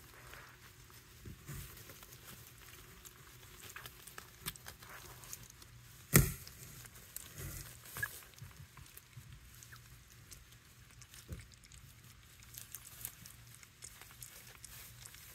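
Pomeranian puppy eating kibble from a plastic bowl: faint, irregular chewing and crunching clicks, with one sharp knock about six seconds in.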